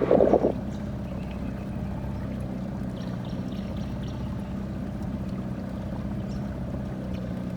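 Small four-horsepower outboard motor running at a steady speed, with water trickling and splashing along the hull.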